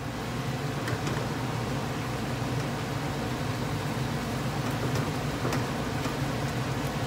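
A steady mechanical hum and hiss runs throughout, with a few faint light clicks of a silicone spatula against a frying pan as a saucy chicken stew is stirred.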